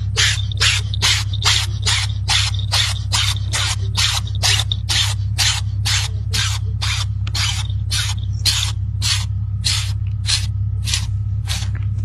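An animal sneezing over and over in a rapid run of about thirty short, breathy sneezes, two to three a second, slowing slightly near the end, over a steady low hum.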